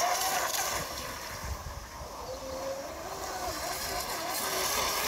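Radio-controlled speedboat running across a pond, its motor whine wavering up and down in pitch with the throttle and fading as the boat runs away, over wind on the microphone.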